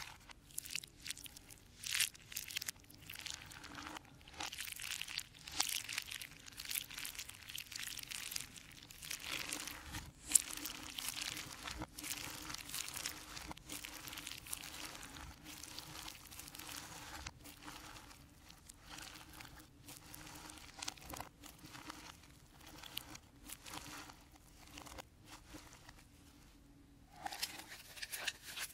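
Hands kneading and squeezing a slime mixed with macaroni and cheese powder, giving a dense, crunchy crackling with sharp pops. Near the end, a paper packet is crinkled.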